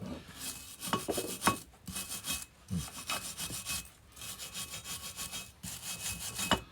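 Hand wire brush scrubbing caked crud and dirt off a Kurt 5-inch milling machine vise, in bursts of quick back-and-forth scraping strokes with short pauses and a few sharp knocks.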